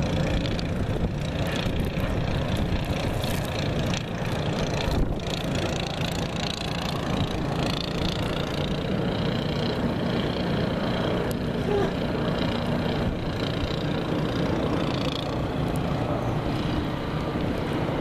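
Strong blizzard wind blowing across the microphone: a steady low rumble that doesn't let up.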